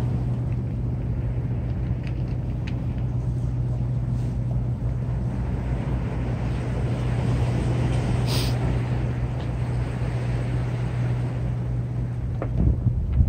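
Steady low drone of a motorboat engine running out on the water, over a rumble of wind and sea, with a few light knocks near the end.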